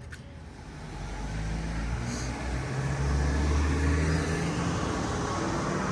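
Car driving along a road: steady engine and road noise that grows louder over the first couple of seconds, then holds.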